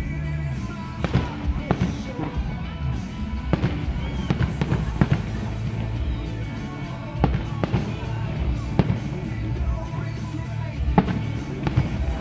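Aerial firework shells bursting in a string of sharp booms, irregularly a second or two apart, with music playing underneath.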